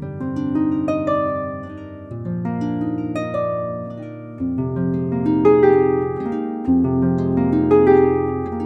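Background music: a slow piece of plucked string notes over held low bass notes.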